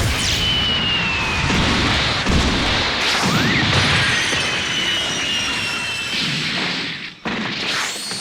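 Dense layered anime fight sound effects: a continuous run of impacts, crashes and booms with whooshes, a few thin high whistling tones, and a short rising glide about three seconds in. The din briefly drops out near the end before more hits follow.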